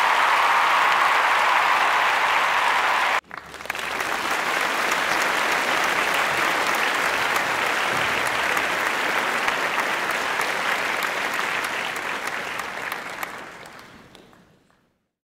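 Crowd applause, dense and steady, cut off sharply about three seconds in, then resuming and fading out near the end.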